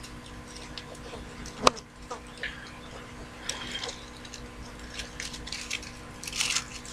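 One sharp click a little under two seconds in, with scattered faint small clicks and high chirps over a steady low hum.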